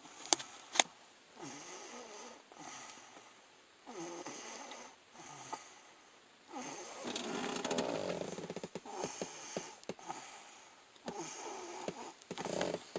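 A person snoring: four rattling snores two to three seconds apart, the third the longest and loudest. Two sharp clicks near the start.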